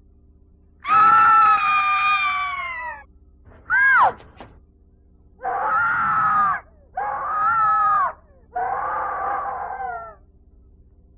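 Five drawn-out, wavering wailing cries from a Halloween haunted-house sound-effects record. The first is long, the second short and rising then falling, and three more follow close together, over a steady low hum.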